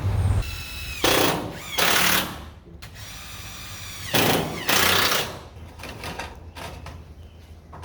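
Power driver running screws into metal trim and drip edge, in three short runs with quieter gaps between.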